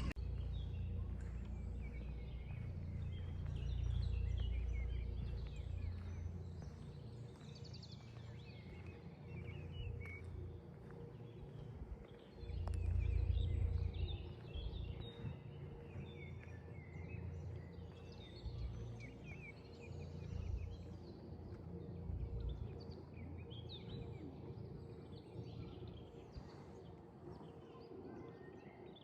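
Low rumble of wind on the microphone, swelling in gusts about four and thirteen seconds in, with small birds chirping and calling throughout.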